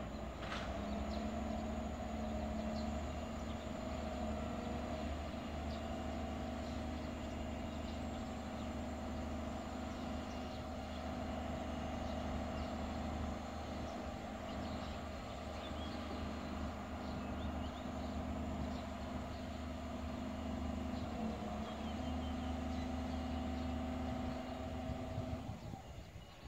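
A large diesel engine in the rail container yard runs at one steady drone with a low hum, fading out about a second before the end.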